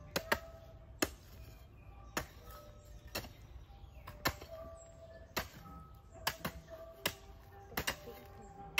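Sharp knocks or chopping strokes, roughly one a second and some in quick pairs, over faint background music.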